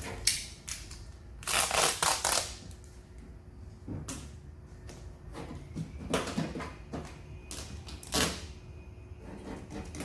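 Duct tape being pulled off the roll and torn in several strips, the longest pull about a second and a half in, with shorter tearing pulls later on.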